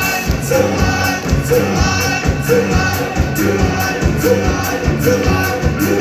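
Live band playing a song, with a steady, evenly spaced drum beat and repeating pitched notes.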